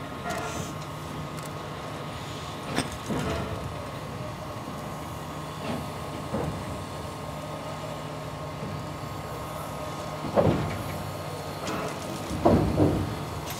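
Railway sounds from a standing or slow train: a steady mechanical hum, broken by a few brief, louder sounds, with no regular exhaust beat.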